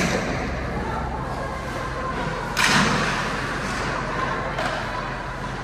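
Knocks and a loud thud against the boards of an ice hockey rink, the loudest about two and a half seconds in, echoing through the arena, with a fainter knock near the end.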